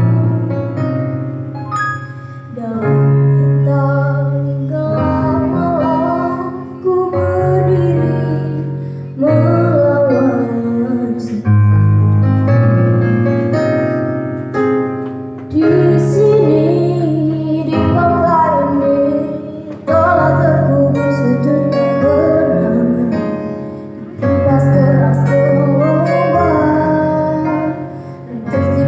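A female voice singing a slow Indonesian pop song over piano accompaniment.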